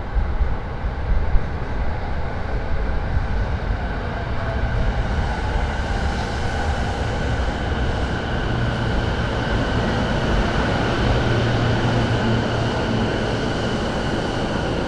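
JR East E233 series electric train pulling into the station and slowing alongside the platform. Its wheels rumble over the rails, a high steady whine joins in after a few seconds, and the sound grows slowly louder as it passes close by.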